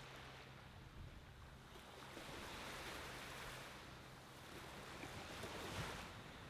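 Faint small ocean waves washing onto a sandy beach: a soft hiss that swells about two seconds in and again near the end.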